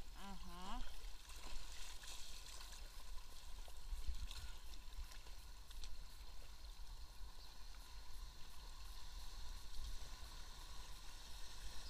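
River current rushing and gurgling around an inflatable kayak: a steady watery hiss with a low rumble beneath it.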